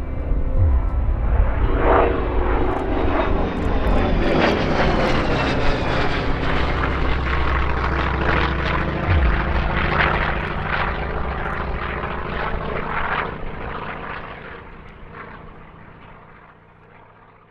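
Piston-engined propeller aircraft flying past, its engine note dropping in pitch as it goes by, then fading away over the last few seconds.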